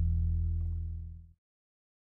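Background ambient music of sustained low tones, fading and then cutting off abruptly about a second and a half in, leaving dead silence.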